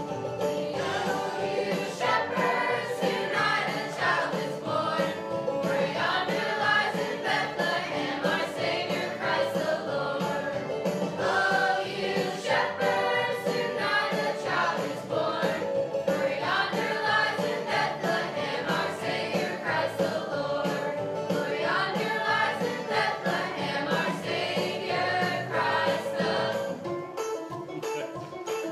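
A group of young voices singing a song together, accompanied by a banjo.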